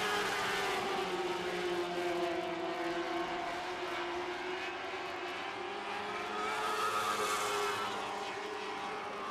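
Lightning Sprint race cars running at race speed on a dirt oval, their engine pitch rising and falling through the turns. The engines get louder for a moment about seven seconds in.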